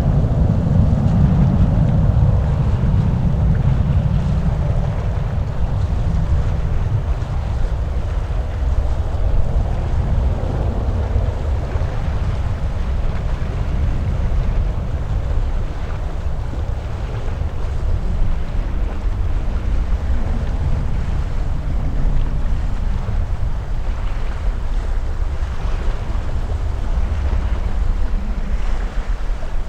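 Wind buffeting the microphone with a deep, steady rumble, over the noise of jet aircraft at the airfield; a louder roar in the first few seconds dies away.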